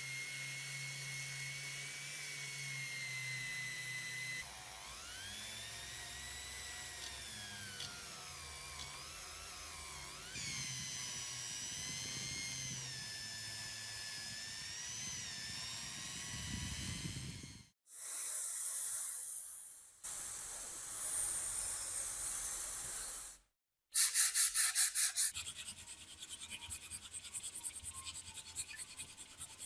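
Small power tool motor whining on metal, its pitch dropping and rising as it is loaded. After short cuts come a stretch of hissing and then fast repeated scraping strokes.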